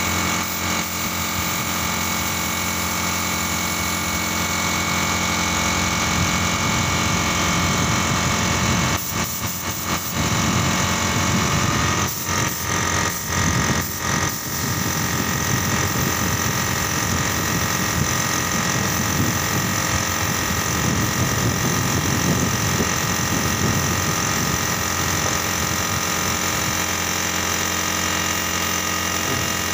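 Gravity-feed paint spray gun hissing as it sprays, over the steady running of an air compressor. The spray cuts out briefly several times about a third of the way in, then runs on steadily.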